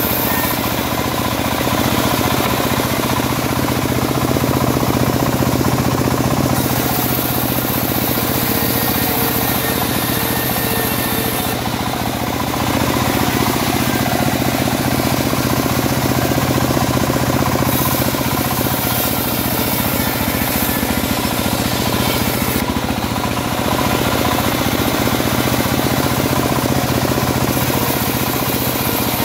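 Homemade bandsaw mill running steadily while ripping teak boards: a constant machine hum under the hiss of the blade cutting wood. The high cutting hiss swells and drops back every several seconds as boards are fed through and pulled back.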